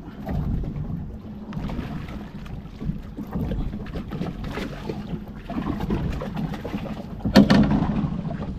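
Ambient sound aboard a small fishing boat at sea: water and wind noise over a steady low hum. A louder sudden sound comes about seven and a half seconds in.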